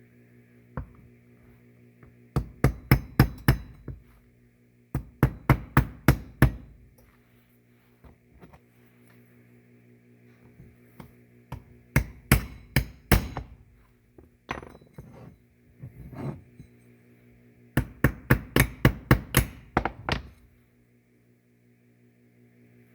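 Hammer tapping a steel roll pin into a garage door opener's replacement drive gear, in several quick runs of light blows with pauses between. The pin won't go in with the hammer.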